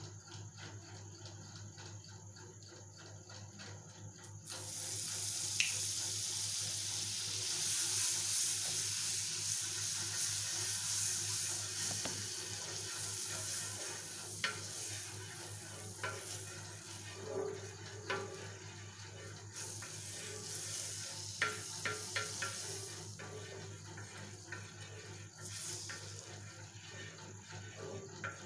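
Butter sizzling on a hot flat pan (pena), the hiss starting suddenly about four seconds in and running on, with a few light clicks partway through.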